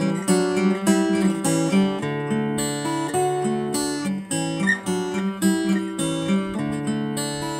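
Acoustic guitar strummed in a steady rhythm, playing an instrumental passage of the song's chords with no singing.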